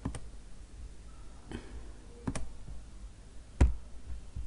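Computer mouse clicking, about four separate clicks at irregular intervals. The loudest, about three and a half seconds in, comes with a dull thud.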